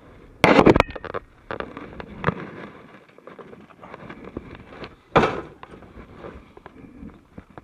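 A quick cluster of sharp, loud bangs and rattles about half a second in, then scattered lighter knocks, and another loud bang about five seconds in.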